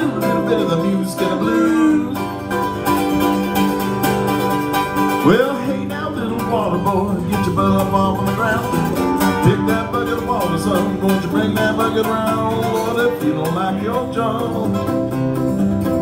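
Mandolin and acoustic guitar playing a bluegrass instrumental break.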